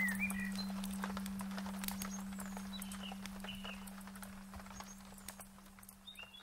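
Nature ambience of small birds chirping in short gliding calls, with scattered light clicks, over a steady low tone; it all fades out gradually.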